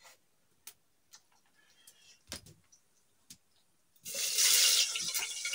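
A few light clicks and knocks, then about four seconds in a sudden loud sizzle as something goes into hot oil in a pressure cooker. The sizzle then settles to a steady frying hiss.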